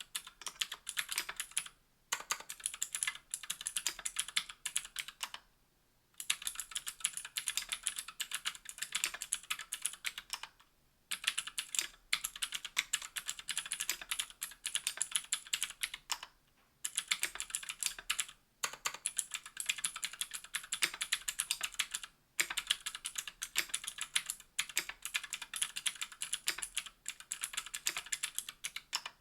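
Fast typing on a KBDfans Tofu60 aluminium 60% mechanical keyboard with Gateron Green clicky switches and GMK keycaps: a dense run of sharp, high keystroke clicks, broken by short pauses a few times.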